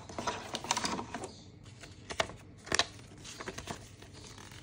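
Handling of cardboard and paper packaging: an earphone box's tray is moved and its paper manual is taken out, with rustling and tapping that are busiest in the first second, then a few sharp taps.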